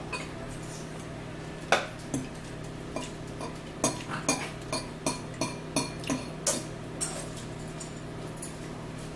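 Forks clinking and scraping against bowls as two people eat noodles: a dozen or so short, sharp clicks, thickest in the middle, over a steady low hum.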